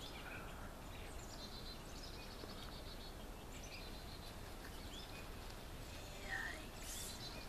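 Quiet outdoor background noise with a few faint bird chirps.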